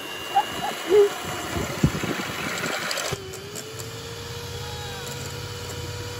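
Electric hand mixer running, its beaters whipping a sugared dark liquid into a light brown foam in a stainless steel bowl. About halfway through it settles into a steady motor whine with a low hum underneath.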